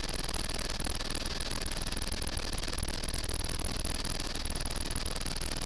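Helicopter engine and rotor noise heard in flight from inside the cabin: a steady, even rush with a low rumble underneath and a thin, very high whine held throughout.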